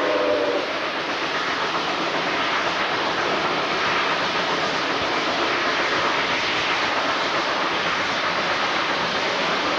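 Steam train running, heard from an open carriage window: a steady rushing noise of the moving train. A steam whistle cuts off about half a second in.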